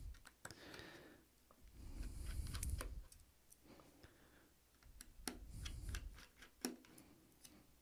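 Small screwdriver working on the screws of a Square Terminal card reader's housing: faint scattered clicks and ticks from the bit and the parts, with a couple of low handling rumbles as the device is moved.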